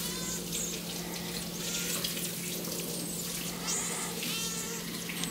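Kitchen tap running water into a stainless-steel sink, a steady rush, with several short high-pitched chirps over it.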